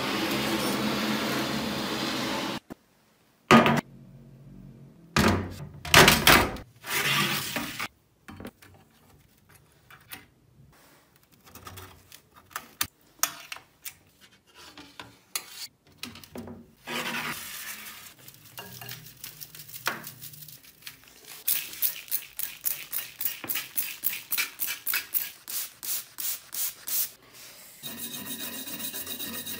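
Handling and cleaning sounds on a rusty iron cleaver blade. It starts with a few seconds of noisy sloshing and rubbing at the plastic tub of rust-removal liquid, then sharp knocks and scraping as the blade is handled on a tray. Near the end a small wire brush scrubs the blade through white powder in quick, even strokes.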